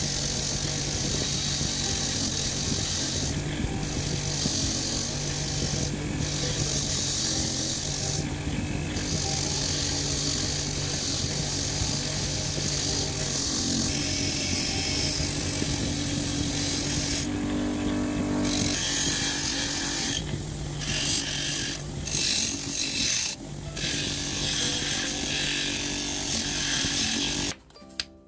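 Bench-mounted wire wheel spinning at a steady motor hum, with the scratching of its bristles as a small metal bayonet part is held against it to brush the metal clean. The scratching thins out briefly several times as the part is shifted on the wheel, and the sound stops abruptly near the end.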